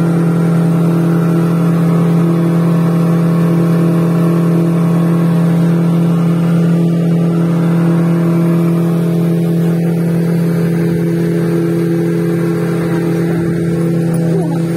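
Yamaha 50 hp outboard motor running at a steady cruising speed, pushing a speedboat along; an even, unchanging engine drone over the rush of wake and wind.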